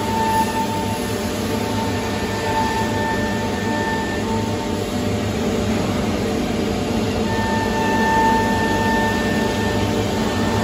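Double-head wood CNC router running with a steady machine hum, and a high whine that comes and goes several times as the heads work the board.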